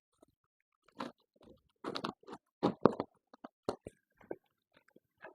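Parcel packaging being torn open and handled by hand: irregular bursts of crinkling and ripping with short gaps, loudest between about two and three seconds in.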